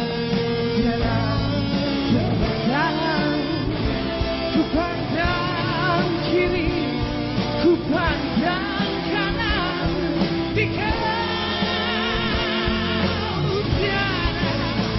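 Rock band music with singing over electric guitar, bass and drums.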